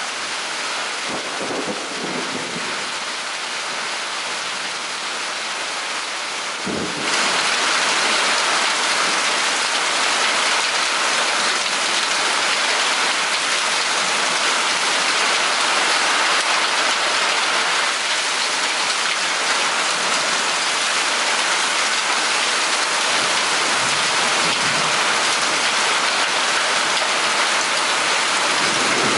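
Steady rain of a thunderstorm with faint low rumbles of thunder; the rain gets suddenly louder about seven seconds in.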